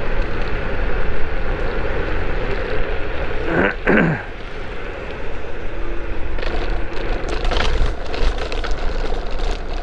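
Wind rushing over the microphone and road noise while riding an electric kick scooter uphill at about 40 km/h. About four seconds in there is a brief whoosh that sweeps down and back up in pitch, and scattered clicks follow in the last few seconds.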